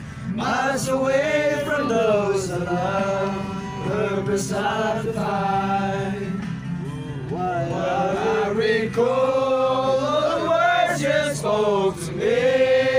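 A group of young men singing together loudly, holding long notes that rise and fall.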